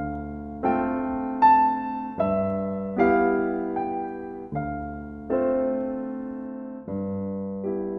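Background music: gentle keyboard (piano or electric piano) chords, a new chord struck about every second and left to fade before the next.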